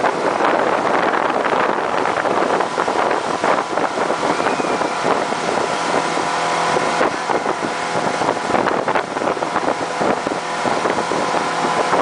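Motorboat engine running steadily at speed while towing, under the rush of its wake and spray, with wind buffeting the microphone.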